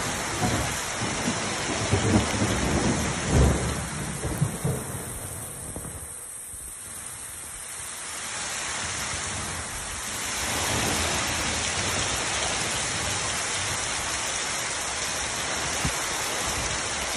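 Heavy rain pouring down with a steady hiss, with a few low rumbling surges in the first few seconds. The rain thins briefly around the middle, then comes back heavier and steady.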